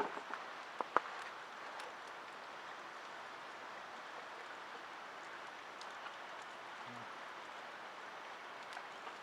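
Steady, even outdoor hiss like falling rain or running water, with a few faint clicks in the first second.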